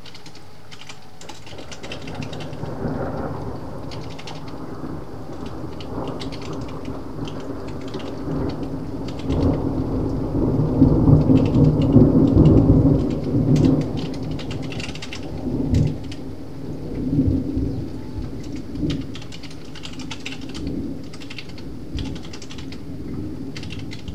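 A long roll of thunder rumbling, building to its loudest about halfway through, then dying away in a few smaller rumbles. Rain patters on the skylight glass, heard close up, with computer keyboard typing clicking throughout.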